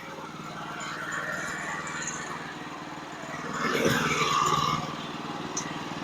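Small gasoline engine of a Woodland Mills portable bandsaw mill running steadily, getting louder for about a second a little before the four-second mark.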